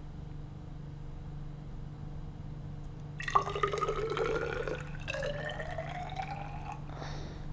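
Water poured from a glass bottle into a graduated cylinder, starting about three seconds in: a splashing fill whose pitch rises steadily as the cylinder fills, stopping shortly before the end. A steady low hum sits underneath.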